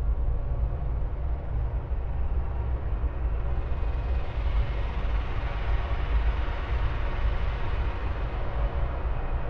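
Dark ambient drone: a steady, deep rumbling noise, heaviest in the bass. A hiss above it swells a little from about a third of the way in and eases off again near the end.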